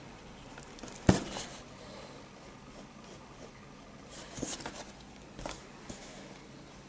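Pencil and eraser working on drawing paper: faint rubbing and scratching, with one sharp knock about a second in and a few lighter clicks later.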